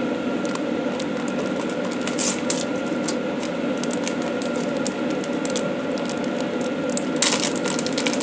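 Plastic packaging of a reusable face mask crinkling and rustling as it is handled, with sharper crinkles about two seconds in and near the end, over a steady machine hum.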